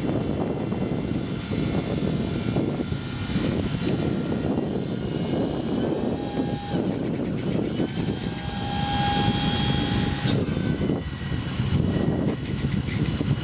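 Stellar 3315 truck crane's electric-over-hydraulic drive running as the boom is raised: a steady mechanical drone, with a whine that comes in about six seconds in and stops around ten seconds.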